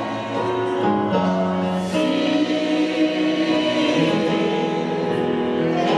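Gospel worship music: long held chords with choir singing.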